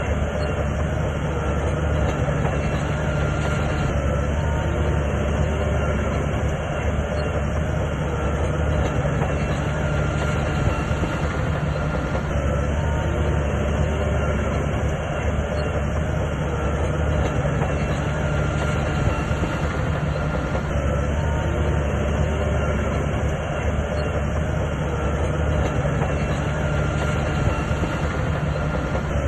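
Crawler bulldozer working, its diesel engine running at a steady low hum with the steel tracks clattering.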